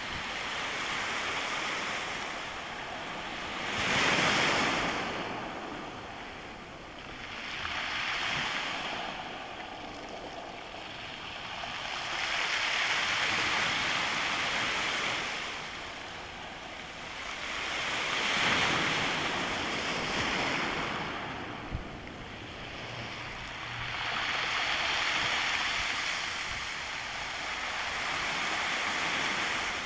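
Sea waves surging over a stony beach, the stones rattling in the backwash as each wave drains back. The rush swells and fades about six times, one surge every four to six seconds, with the loudest about four seconds in and again near eighteen seconds.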